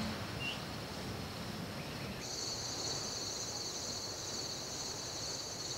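Chorus of crickets trilling steadily in high-pitched tones, with a second, higher-pitched chorus joining about two seconds in.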